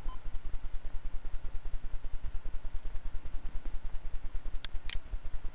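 Two sharp computer mouse clicks close together near the end, over a steady low buzzing hum that flutters about ten times a second.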